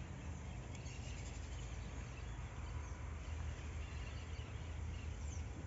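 Outdoor ambience: a steady low hum, with faint, scattered bird chirps.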